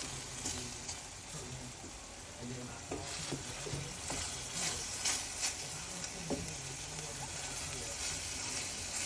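Ground beef sizzling as it browns in a frying pan, stirred with a utensil that scrapes and knocks against the pan now and then.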